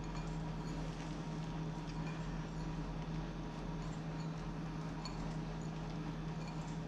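Brown sugar crumbled between fingers and sprinkled from a small glass bowl onto a soft bread-pudding mixture, giving faint scattered ticks and light scratching over a steady low hum.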